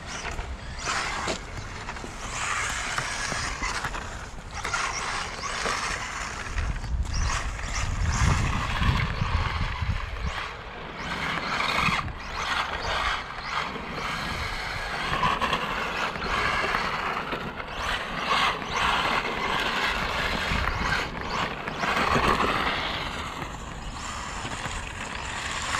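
Electric 1:10 RC rally car driving over wet, rough asphalt: a shifting whir and tyre hiss, with irregular clicks and knocks as the chassis rattles over cracks and bumps.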